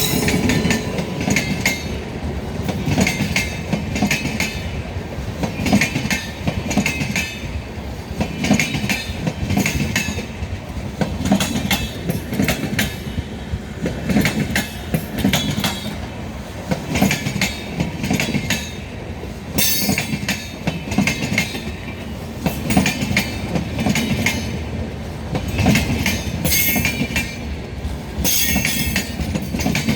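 A departing passenger express train's coaches rolling past at low speed, wheels clattering over the rail joints about once a second, with occasional short, high-pitched metallic squeals from the wheels.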